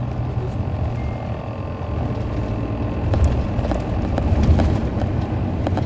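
The Caterpillar C13 diesel engine of a 2007 MCI D4500CL coach, heard from inside the cabin as a steady low rumble while the bus is under way. Scattered clicks and rattles come in over the second half.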